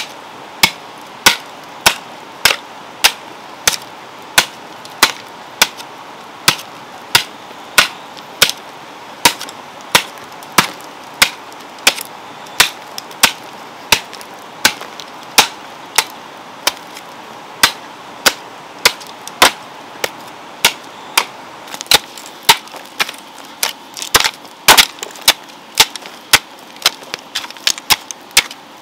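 Metal hoe chopping into soil in steady, regular strokes, about three sharp strikes every two seconds, with a quicker run of strikes near the end.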